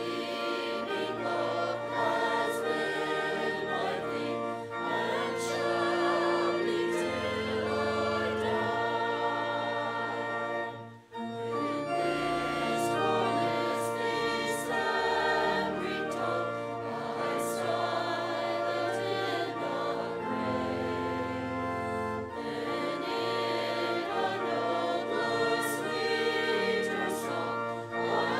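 Congregation and choir singing a hymn together, over sustained organ accompaniment. The singing breaks off briefly between phrases about eleven seconds in.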